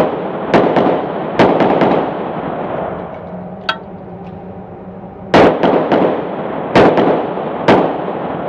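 Handgun shots inside an indoor shooting range, each followed by a long echoing tail: three shots in the first second and a half, a pause of about four seconds, then three more roughly a second apart.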